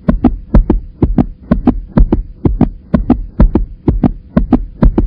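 A fast, steady double-thump beat like a heartbeat, about two pairs of heavy thumps a second, over a faint steady hum.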